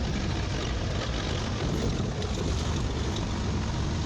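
Steady engine and road rumble of a vehicle being driven, heard from on board, with a rushing noise over it.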